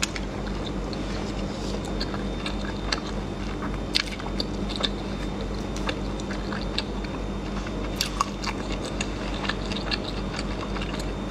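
A person chewing close to the microphone, with short wet mouth clicks and small crunches scattered through, as she eats shellfish from a chili marinade. A steady low hum runs underneath.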